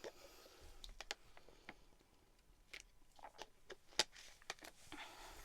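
Near silence: room tone with a few faint clicks and soft mouth noises, the loudest click about four seconds in.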